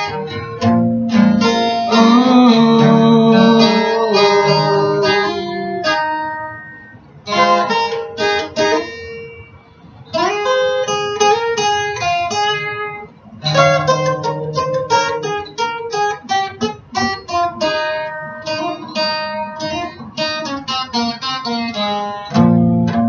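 Acoustic guitar played solo as an instrumental break: single picked notes mixed with strummed chords, thinning out and dropping quieter for a moment near the middle before picking up again.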